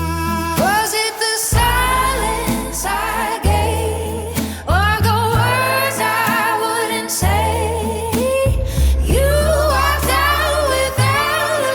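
Music: a sung vocal line with strong vibrato over a bass line and drums.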